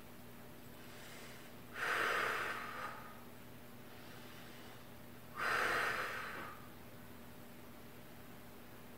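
A woman breathing hard while holding a plank position: two long, audible breaths about three and a half seconds apart, each starting sharply and tailing off.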